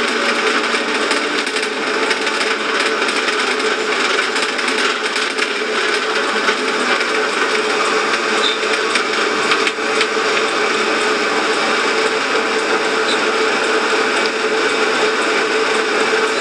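A small motor running steadily, with a constant whirring noise and a steady mid-pitched hum.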